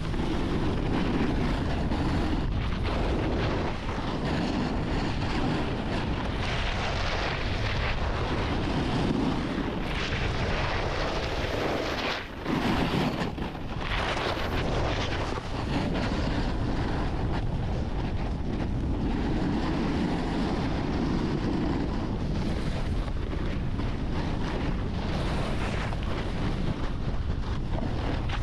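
Wind rushing over the microphone and a snowboard sliding and scraping over packed snow at speed, rising and falling, with a brief lull about twelve seconds in.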